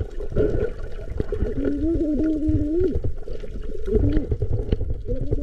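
Muffled water sounds with gurgling, and a wavering, voice-like hum that holds for about a second and a half near the middle.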